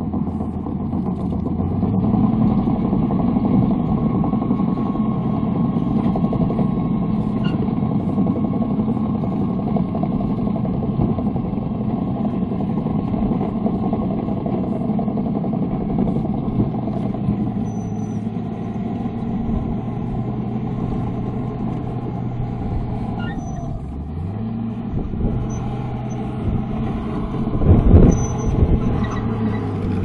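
Komatsu D41P crawler bulldozer's diesel engine running steadily as the machine travels. The engine note dips and picks back up about two-thirds of the way through, and a loud thump comes near the end.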